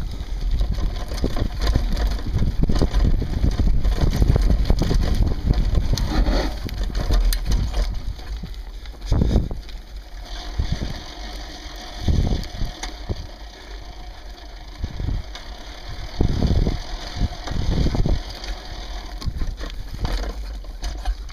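Sport-On Explorer II off-road handbike rolling over a rough dirt forest trail, heard from a camera on its handlebars: a dense rumble of tyres and frame for the first several seconds, then quieter rolling broken by several sharp knocks as it jolts over bumps.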